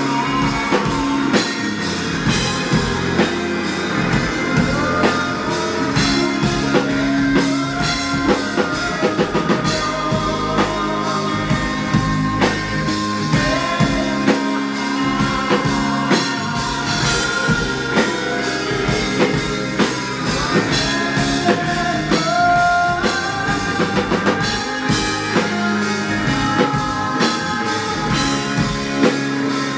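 Rock band playing live, with a steady drum-kit beat under electric guitar.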